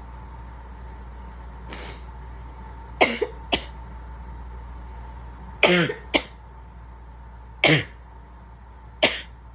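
A sick woman coughing: a string of short, sharp coughs in small groups, starting about three seconds in.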